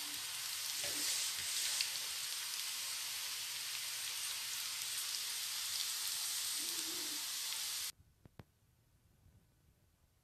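Balls of grated cassava deep-frying in hot oil in a pan, with a steady sizzle. The sizzle cuts off suddenly near the end, leaving near silence and one faint click.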